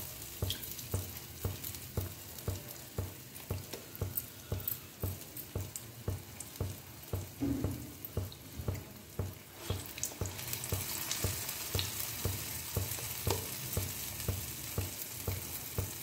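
Medu vadas (urad dal fritters) deep-frying in hot oil: a steady sizzle with frequent small pops, the hiss growing louder about ten seconds in.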